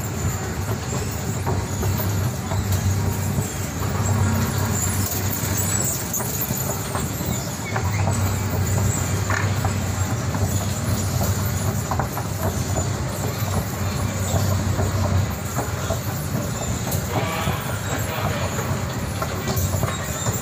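Escalator running: a steady low hum under a continuous dense rattling clatter, from an escalator whose handrail chain is broken.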